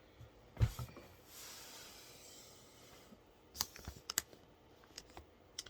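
Small objects being handled on a work surface: a single knock about half a second in, a soft rustle, then several sharp clicks and ticks.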